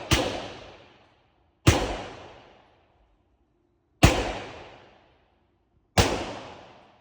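Four pistol shots fired slowly, about two seconds apart, each followed by a long echo dying away in an indoor range.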